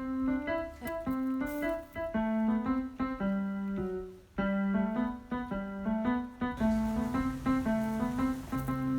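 Background piano music: a steady run of short melodic notes, with a low held bass note coming in near the end.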